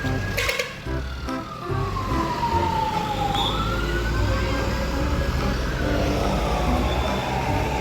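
A wailing siren, climbing quickly and then falling slowly in long cycles, over a low rumble, with a sharp click about half a second in.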